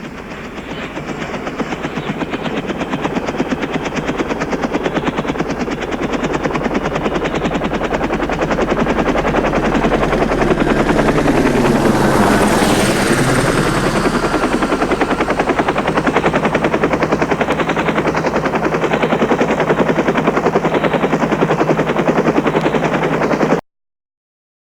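Helicopter rotor spinning up, its rapid blade chop building in loudness over the first several seconds, then running at a steady fast beat. It swells briefly near the middle and cuts off abruptly near the end.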